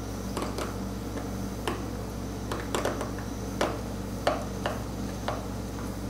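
Steel seal-carving knife cutting into a small stone seal: a string of short, sharp clicks and scrapes at irregular intervals as chips of stone break away under the blade.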